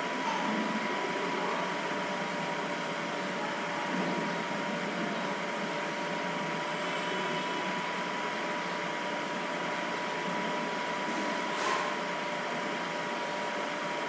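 Steady background hiss with a thin, steady electrical whine running through it: recording noise of a desk microphone. One faint click about twelve seconds in.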